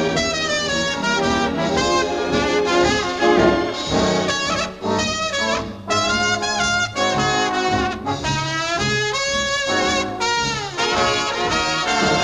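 Background music: an upbeat jazz tune played on brass instruments, with quick runs and gliding notes.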